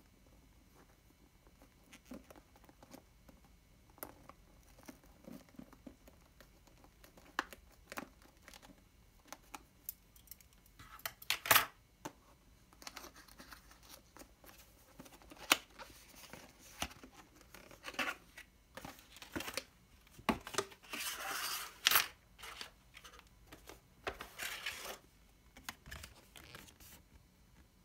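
Cardboard headphone box being handled and opened: paper seals tearing and card rustling, with scattered sharp clicks and scrapes. The loudest tearing comes in short stretches about halfway through and about two-thirds of the way in.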